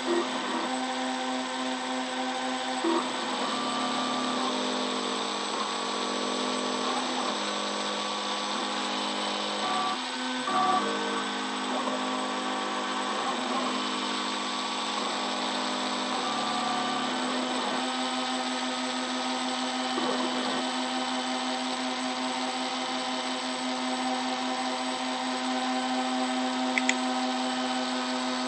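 CNC router spindle running as it engraves isolation traces into a copper-clad PCB board, a steady whine. Between about 3 and 17 seconds in, extra tones come in that step up and down every second or so.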